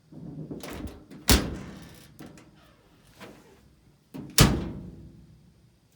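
A clothes dryer giving two loud bangs about three seconds apart, each ringing out afterwards, following a short rumbling clatter.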